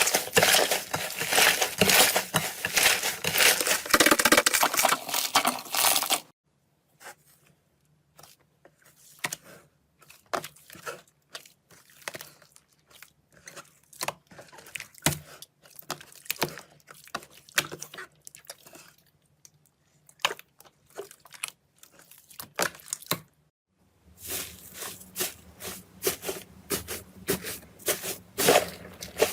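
Slime being handled, giving dense crackling and crunching for about six seconds, then only sparse, quieter clicks and pops, then dense crackling again for the last five seconds or so.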